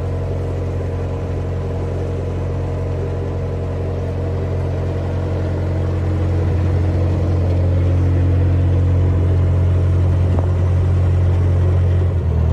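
Narrowboat's diesel engine running steadily while the boat cruises: a low, even drone that gets a little louder about halfway through.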